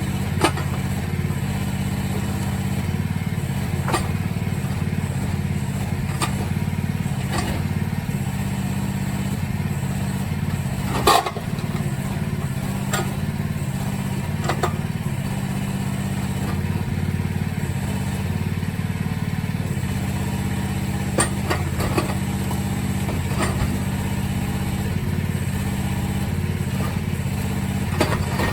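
Mini excavator engine running steadily, with a string of short knocks as its bucket strikes and breaks up cinderblock and concrete pieces; the loudest knock comes about eleven seconds in.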